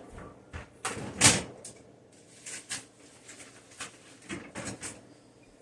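Scattered knocks and clicks of kitchen items being handled and thrown away, the loudest just over a second in.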